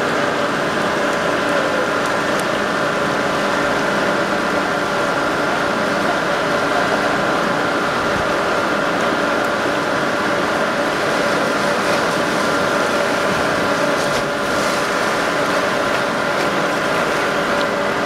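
Steady machine hum with several fixed tones over a constant wash of noise, typical of a water slide's pump and the water running down the slides.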